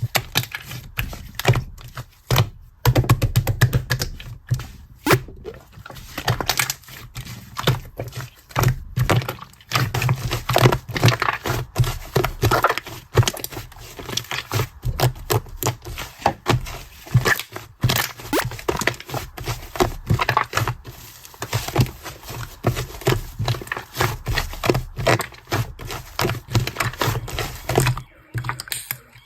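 Slime being squished and pressed by hand: a dense, irregular run of sticky pops, clicks and crackles.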